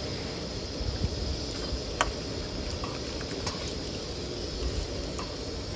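Breaded bread rolls sizzling as they deep-fry in hot oil in a metal pan, a steady hiss. A metal slotted spoon turns them, giving a few sharp clicks, the loudest about two seconds in.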